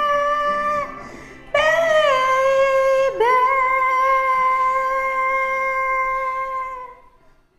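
A woman singing long held notes over a soft karaoke backing track, each new note dipping in pitch as it starts. The last note is held for about three and a half seconds and fades out as the song ends.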